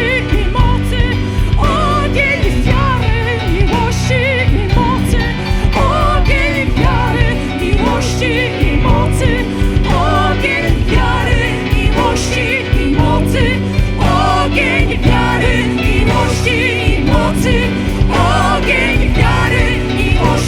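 Live worship band playing a song in a steady pulse, with a voice singing sustained, wavering lines over the band.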